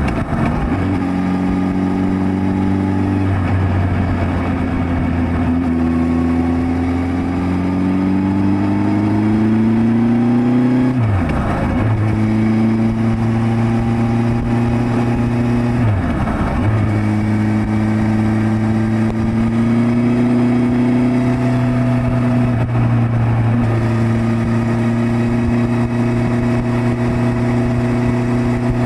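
Suzuki GSX1300R Hayabusa's inline-four engine pulling the motorcycle along, heard from an onboard camera. It rises in pitch as it accelerates and steps in pitch several times at gear changes, with two short sharp dips in the middle where the throttle is closed for a shift.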